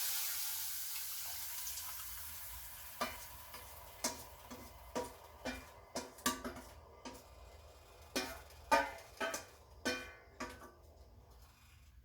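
The sizzle of rasam masala water hitting hot tempering oil dies away, then a spoon knocks against the pot about a dozen times at an uneven pace while the rasam is stirred, each knock ringing briefly.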